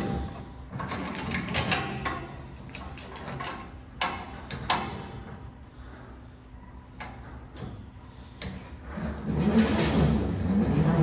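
Winch cable being pulled out by hand from a small winch, with scattered metal clinks and knocks as the chain and hook are handled.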